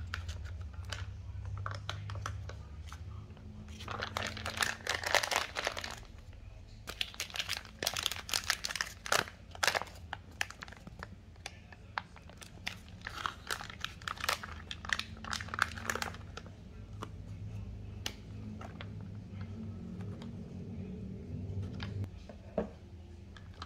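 Foil food pouches crinkling and crackling as they are handled, torn open and shaken out. The sound comes in three spells of dense crackling, about four, seven and thirteen seconds in, with lighter rustles in between.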